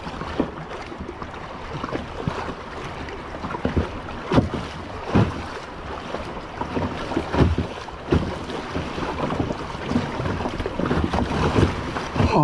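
Wind buffeting the microphone over choppy water, with the irregular splashes of a double-bladed paddle dipping on alternate sides of a canoe.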